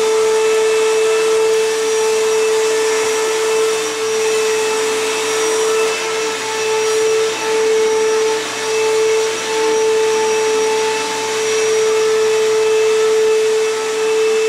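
Upright vacuum cleaner running on carpet: a steady motor whine over rushing airflow, dipping in level now and then as it is pushed back and forth.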